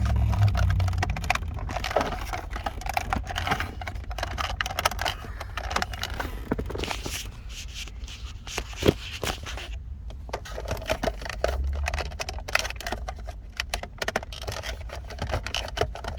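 Irregular plastic clicks and scraping as a climate control unit is handled and pushed into its dashboard opening, with a low hum in the first second.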